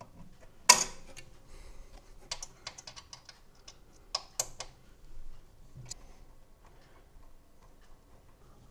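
Scattered light clicks and taps of a hand tool and small metal parts on a 3D printer's frame, with one sharp, loud click about a second in. The printer is being freed of its shipping locks so its axes can move.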